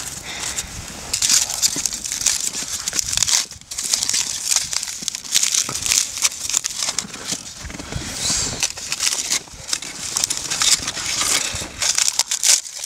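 Aluminium foil crinkling and tearing as it is peeled by hand off potatoes baked in the embers, a dense run of small crackles. For the first three seconds or so, wooden sticks scrape in the charcoal as a foil packet is lifted out.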